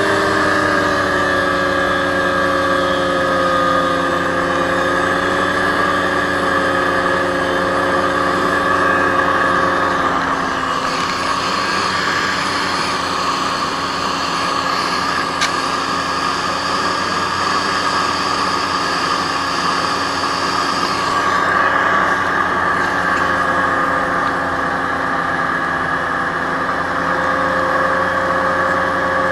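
Aerocruiser SA-1100 hovercraft under way, its engine and fans running steadily at cruise with a slight dip in pitch in the first few seconds. A high hiss joins for about ten seconds in the middle.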